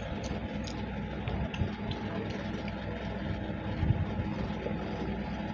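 A steady low mechanical hum, with faint clicks and mouth sounds of people chewing rice and curry eaten by hand.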